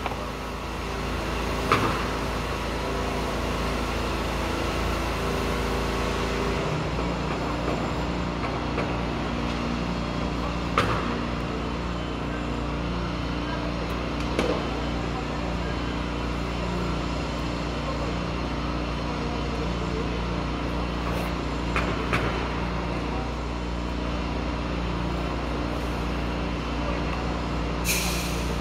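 Steady hiss of a propane roofing torch burning, over a low steady hum that changes pitch about a quarter of the way in, with a few faint clicks.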